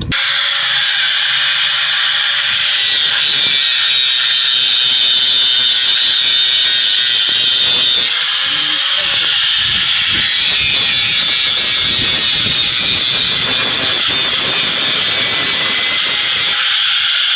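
Electric power tool running steadily against steel, with a high whine. It starts abruptly and keeps a nearly constant pitch.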